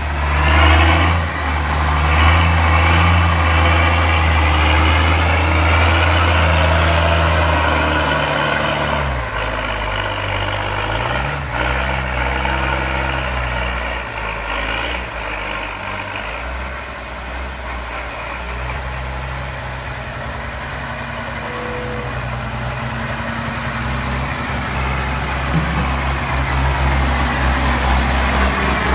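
County 1164 Turbo tractor's turbo diesel engine working hard under load while buck raking maize. It revs up right at the start and runs strongly, dips in pitch and recovers about nine to twelve seconds in, then runs a little lower before building up again near the end.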